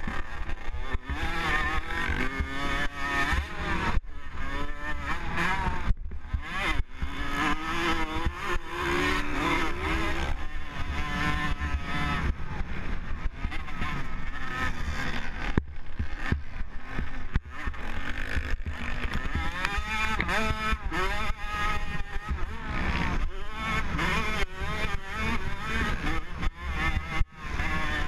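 Motocross dirt bike engine heard up close from the rider's own bike, its pitch climbing and dropping again and again as the throttle opens, shuts and the gears change. Wind rumble on the microphone and knocks from the bumps run under it.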